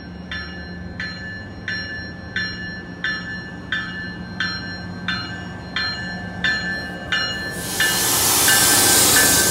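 MBTA commuter train arriving at a station, its bell ringing in even strokes about one and a half times a second over a steady low engine hum. About eight seconds in, the rush of the cab car and coaches passing close swells loud and drowns the bell.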